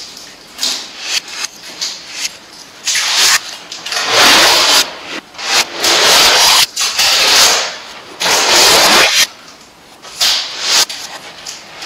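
Adhesive tape pulled off its roll in about seven separate rasping pulls, each lasting under a second, as it is wound around a lamppost.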